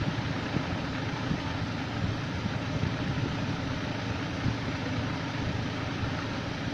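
Steady low hum with hiss, with faint irregular scratches of a pen writing on paper.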